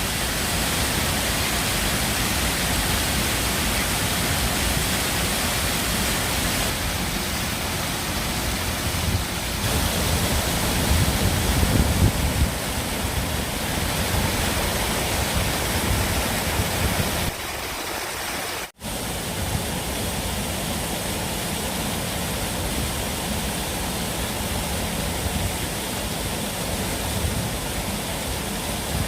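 Running water, a steady rush, louder for a moment a little before halfway. It cuts out for an instant about two-thirds of the way through.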